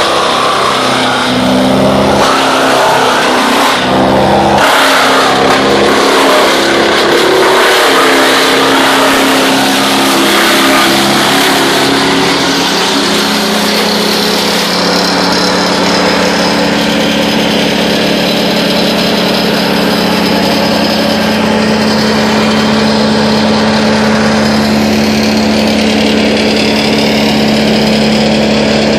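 Wood chipper running at full speed, grinding through branches and blowing chips out of its discharge chute into the chip truck's box. The grinding eases about halfway through, leaving the engine running at a steady pitch.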